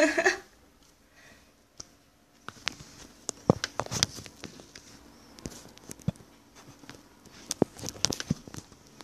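Handling noise of a handheld smartphone: irregular clicks, taps and rubbing on the phone as it is moved about, starting about two and a half seconds in, after a short burst of voice at the start.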